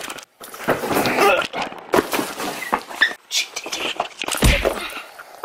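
A scuffle: grunts and cries from the men amid knocks and bumps, with one heavy thud about four and a half seconds in.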